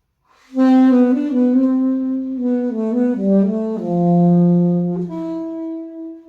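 Alto saxophone playing a slow phrase, entering suddenly about half a second in after silence, its notes stepping downward to a long low held note.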